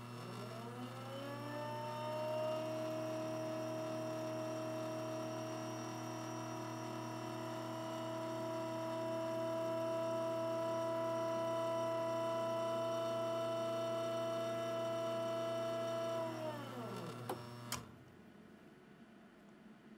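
Espresso machine pump running through a shot. Its motor tone rises in pitch over the first couple of seconds, holds steady over a low hum, then winds down about sixteen seconds in, with a click as it stops.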